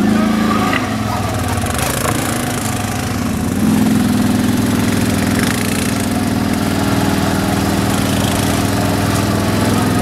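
ATV (quad bike) engine running under way, heard from aboard the machine; its note drops about a second in, picks up again near four seconds, then holds steady.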